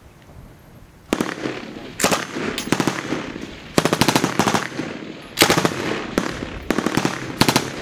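F89 Minimi (M249) 5.56 mm belt-fed light machine gun firing a string of short bursts, starting about a second in, each burst echoing across the range.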